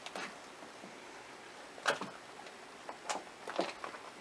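Bars of cold-process soap knocking lightly on a hard surface as they are pushed out of a silicone mold and handled: one clear knock, then a quick run of small clicks.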